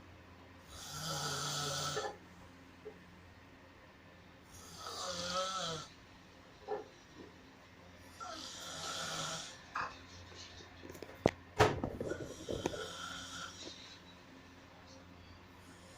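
A sleeping person snoring loudly, four snores about every four seconds, each a rasping breath with a low buzz. A few sharp clicks or knocks come about two-thirds of the way through.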